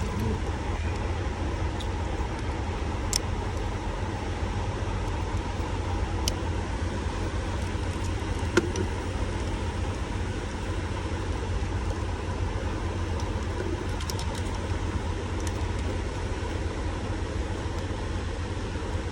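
Steady low rumble and hum throughout, with a few sharp clicks and knocks, spread out, from prying the clips of a truck's steering-column turn signal switch loose.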